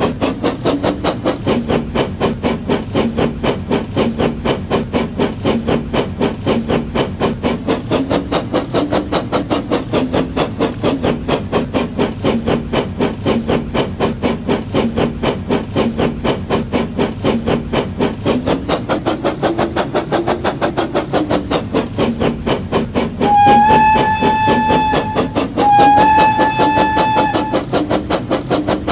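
Steam locomotive sound, steady and rhythmic chuffing, with two blasts of a single-note whistle, each about two seconds long, near the end.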